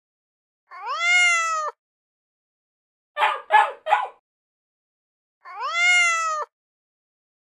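Domestic cat meowing twice, each a drawn-out meow about a second long that rises and then holds. Between the meows come three short, quick calls.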